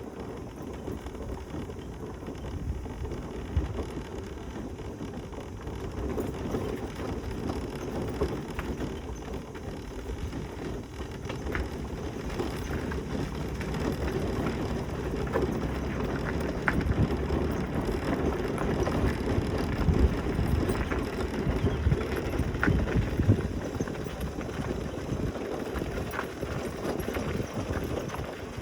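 Mobility scooter's tyres rolling over a gravel path: a steady, rather noisy crunching rumble with scattered small clicks of stones, growing louder about halfway through.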